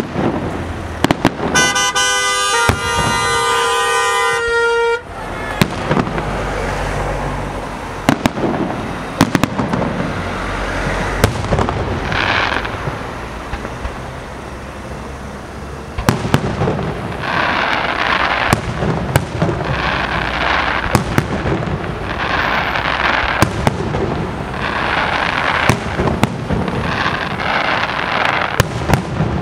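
Aerial fireworks display: shells launching and bursting with sharp bangs throughout, and from about halfway on, bursts of hiss roughly every second and a half as comets rise and break. Early on a horn blares a steady chord for about three seconds.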